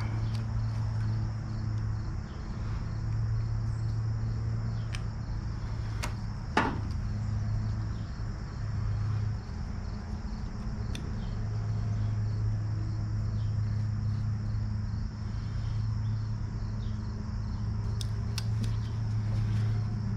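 Scattered sharp clicks and clinks of hand tools and metal parts as a new fuel line is fitted and secured on a commercial mower. Under them runs a steady low hum with a high chirring of insects.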